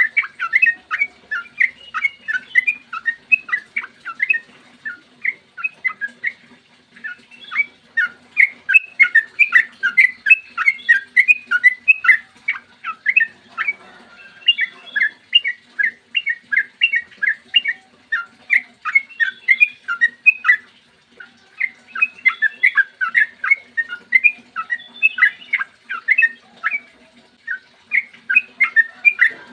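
Sooty-headed bulbul (trucukan) singing a long, rapid run of short, clear notes, broken by a few short pauses.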